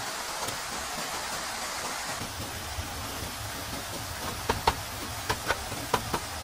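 A steady hiss, then about six sharp knocks over the last two seconds.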